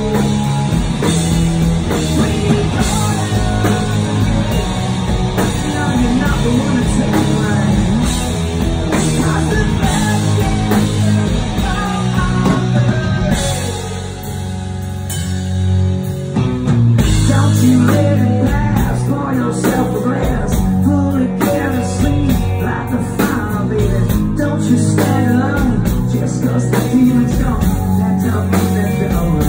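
Live rock band playing: electric guitars, bass and drums with a male lead singer. About 14 seconds in the band drops back to a thinner, quieter passage for a few seconds, then comes back in full.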